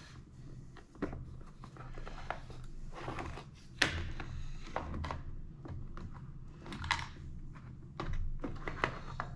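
Scattered light clicks, taps and rubbing from hands handling a rifle, its scope rings and small tools, with a sharper knock about four seconds in.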